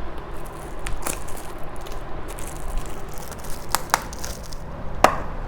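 Packaging being handled and opened by hand: rustling and crinkling, with a few sharp clicks and taps, two of them close together.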